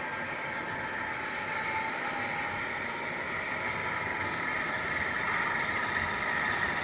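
An approaching diesel locomotive on a model railroad, its engine running steadily and growing gradually louder.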